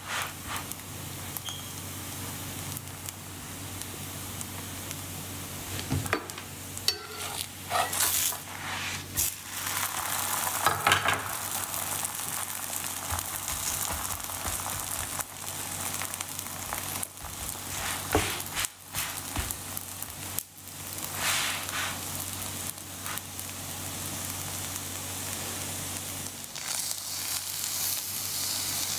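Oiled dough sheets sizzling steadily on a hot electric griddle, with short bursts of handling noise as hands press, pat and turn the dough.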